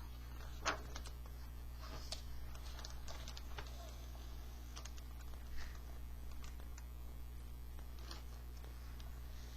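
Quiet indoor room tone: a steady low electrical hum with a few faint scattered clicks and rustles, two slightly louder ones about a second in and a little past the middle.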